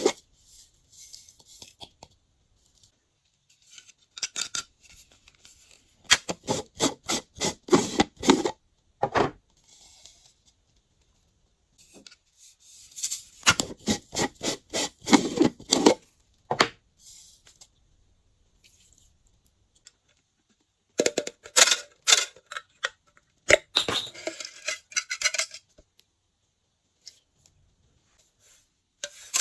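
Glossy slime being squished and worked by hand, giving rapid runs of sticky clicks and pops that come in bursts of a few seconds with short quiet gaps between.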